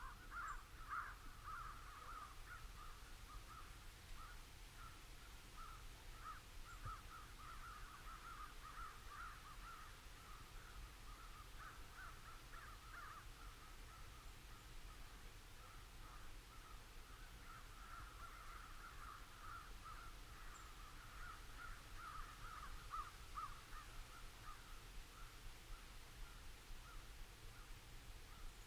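Faint, continuous cawing of many crows, the calls overlapping without a break.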